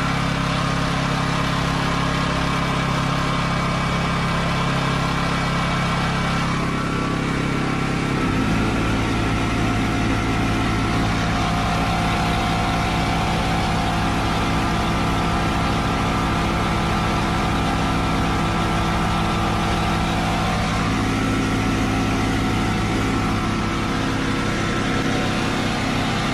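Westinghouse WGen9500 generator's 420cc four-stroke engine running steadily. About eight seconds in, the 6-gallon pancake air compressor plugged into it starts, adding its fast, even pulsing and putting the generator under load.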